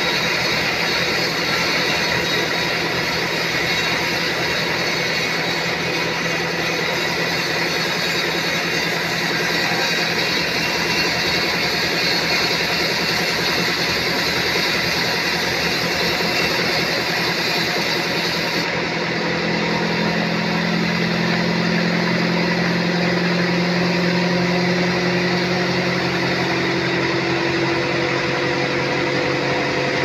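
Band sawmill running steadily, its blade cutting a teak log, with a constant motor hum under the sawing noise. About two-thirds of the way in, the sound becomes duller and the low hum grows stronger.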